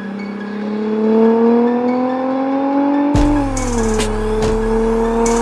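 Mercedes-Benz W203 C-Class exhaust as the car accelerates: a droning tone that climbs steadily, drops at an upshift about three seconds in, then climbs again. A low rumble and a few sharp clicks come in with the shift.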